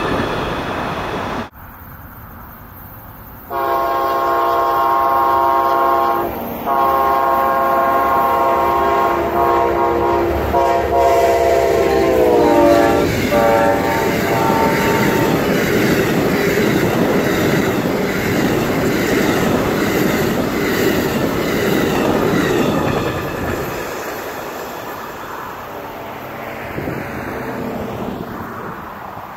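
Amtrak passenger train with two diesel locomotives, its multi-chime air horn sounding two long blasts. The pitch of the second blast drops as the locomotives pass. The train's wheels then rumble and clatter over the rail joints as the cars roll by, fading as the train goes away.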